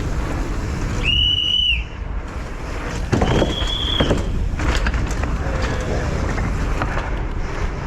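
Downhill mountain bike descending fast, with a steady rumble of tyres and rattling bike. Two short, high whistling squeals sound over it, one about a second in and one about three seconds in, each under a second long.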